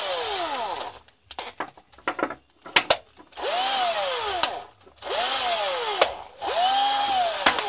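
Cordless drill (MAS 144-2) motor running in short trigger bursts, its whine rising and falling in pitch with each squeeze and release, three times in the second half. Before that, a scatter of clicks and knocks while the motor is stopped.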